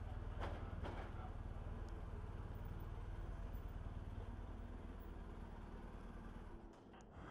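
BMW R 1250 GS boxer-twin engine running low and steady as the bike rolls slowly inside an enclosed rail wagon, with two faint clicks about half a second and a second in. The hum fades and drops away near the end.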